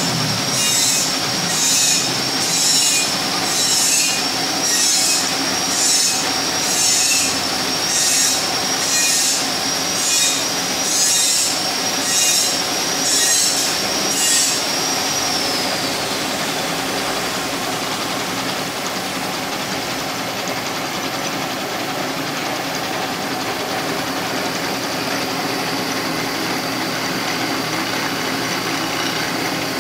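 Milling machine's end mill cutting a helical flight into a white plastic rod for a feed screw. A high-pitched whine comes with a harsh cutting pulse about once a second. About halfway the whine glides down and the pulses stop, leaving the machine running steadily.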